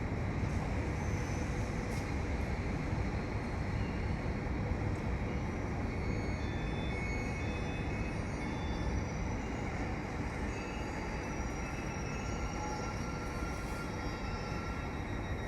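A train rolling through the station with a steady rumble of wheels on rail, and faint, short, high wheel squeals here and there.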